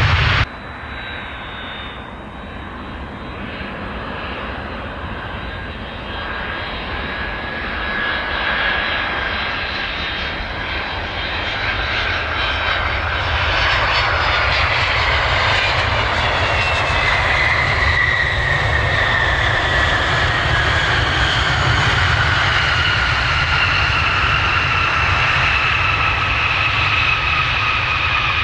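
Jet airliner's engines passing close by on the runway. The noise builds steadily louder, then the engine whine falls in pitch as the aircraft goes past.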